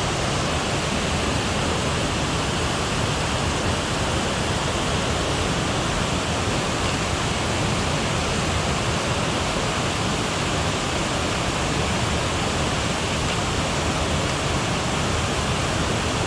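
A waterfall and river cascades rushing at a steady level, the water running high after days of rain.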